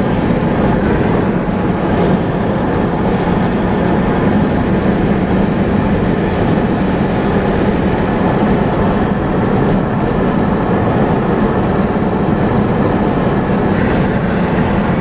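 Steady drone of road and engine noise heard from inside a moving car's cabin, a continuous low hum under an even rushing hiss.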